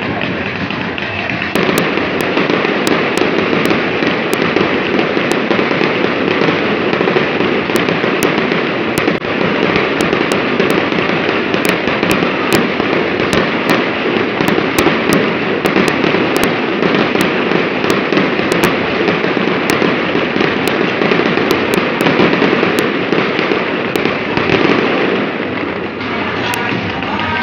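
A fireworks display going off continuously, with dense crackling and many sharp pops over a steady rush of noise.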